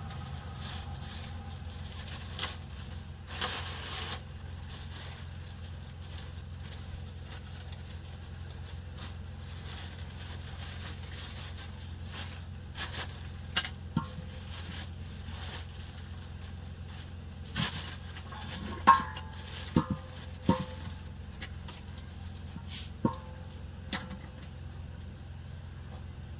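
Scattered knocks and light clinks, some with a short metallic ring, over a steady low hum. The loudest cluster comes past the middle.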